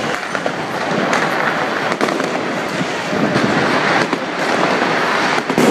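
Street fireworks going off without a break: a dense crackle of many small sharp bangs.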